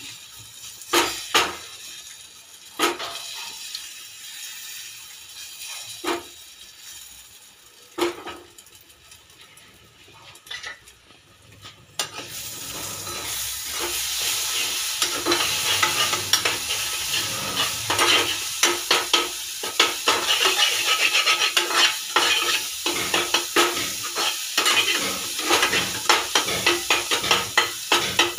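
Eggs cooking in a steel saucepan, with a few separate knocks of a steel spoon on the pan. About halfway through a steady sizzle comes up, with rapid scraping and clicking as the spoon breaks up and stirs the frying egg into bhurji.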